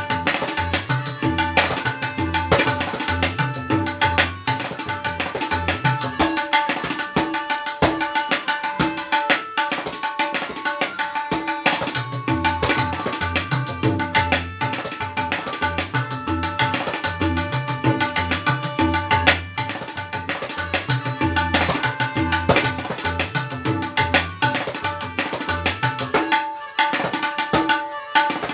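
Tabla solo in teentaal: fast, dense strokes on the treble drum (dayan) with deep bass strokes on the bayan.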